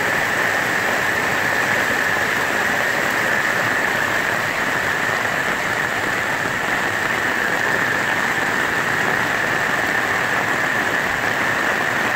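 Heavy rain falling in a steady downpour, with runoff water running along a muddy dirt path: an even, unbroken hiss.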